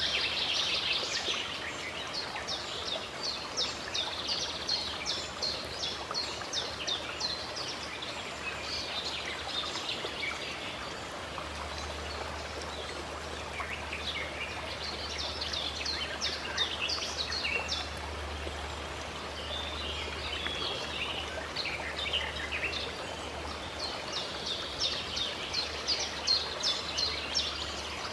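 Steady running water with small birds singing over it in quick, repeated chirping trills that come in phrases near the start, in the middle and near the end.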